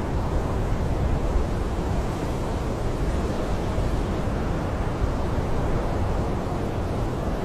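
Blizzard wind blowing in a steady, dense rush, heaviest in the low end, with no gusts or breaks.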